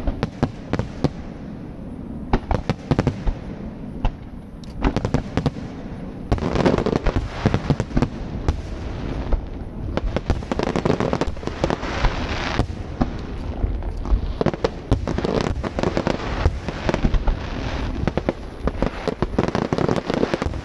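Aerial fireworks going off: a rapid series of sharp bangs, coming in clusters every few seconds.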